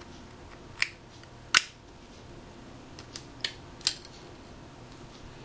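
Small sharp clicks and taps of metal tweezers against the plastic and metal parts of a disassembled compact digital camera as flex cables are worked free of their clamps. There are about five of them, the loudest about a second and a half in.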